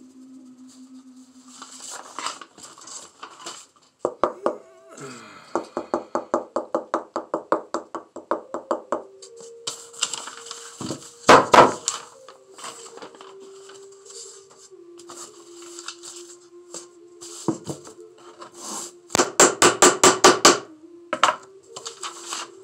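A person humming a slow tune in low, held notes that step up and down in pitch. Two runs of rapid, evenly spaced scratching strokes, about six a second, break in over it from handwork on a sand painting, along with a couple of sharp knocks near the middle.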